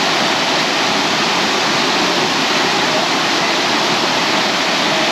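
Steady rush of a waterfall and running creek water, an even wash of noise with no splashes standing out.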